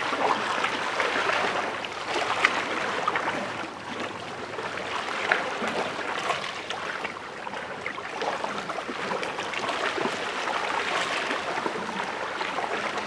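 Small lake waves lapping against shoreline rocks: continuous gurgling and splashing, with little splashes and swells coming and going every few seconds.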